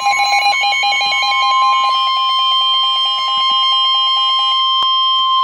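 Emergency Alert System attention signal for a severe thunderstorm warning: a loud, steady high tone near 1 kHz, the pitch of the NOAA Weather Radio 1050 Hz warning tone, with a pulsing beep pattern of about five beeps a second layered over it.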